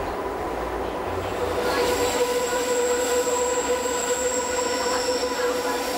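Rhaetian Railway metre-gauge train running on the Bernina line, with steady running noise. From about a second and a half in, the wheels squeal with several high, sustained tones.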